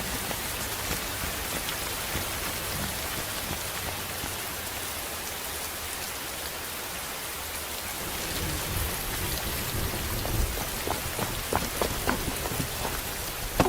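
Steady rain falling, with louder separate drops tapping in the last few seconds.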